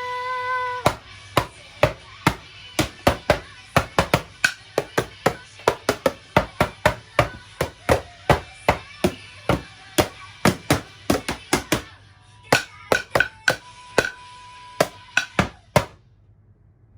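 Hammer knocking in an uneven run of sharp blows, about three a second, over music, stopping suddenly near the end.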